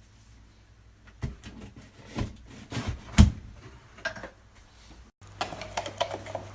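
Irregular knocks and clatter of hard parts being handled and set down, with the loudest knock about three seconds in. A brief break comes near the end, after which a steady low hum sits under more clatter.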